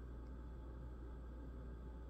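Quiet room tone with a steady low hum; no distinct sound of the wrap being cut stands out.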